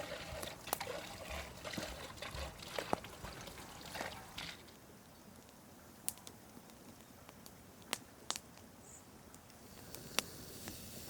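Cold water trickling as it is poured into a cauldron around glass jars, tailing off about four and a half seconds in. A few sharp clicks follow.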